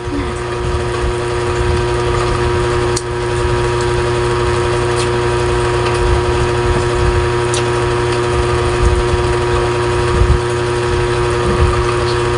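A steady motor hum with a constant droning tone over an uneven low rumble, with a few faint clicks.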